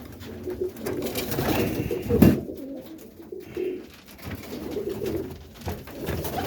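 Domestic roller pigeons cooing in a small loft, low rolling coos overlapping from several birds.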